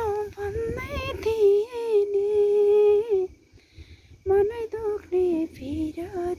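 A high voice humming a slow tune close to the microphone: long held notes, a pause about three seconds in, then shorter notes that slide in pitch.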